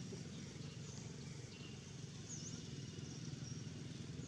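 Outdoor ambience: a steady low hum with a few faint, short, high bird chirps, one near the middle.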